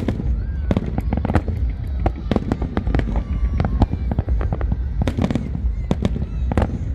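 Fireworks display: many rapid, irregular bangs and cracks from bursting shells, some overlapping, over a continuous low rumble, with no let-up.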